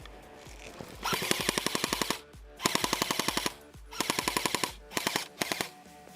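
Airsoft electric gun firing full-auto: five bursts of rapid clicking shots, the first three each about a second long and the last two short.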